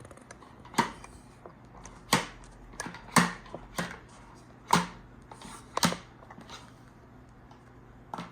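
Plastic toy pieces of a Play-doh ice cream set being handled and knocked together: about half a dozen sharp clacks, unevenly spaced.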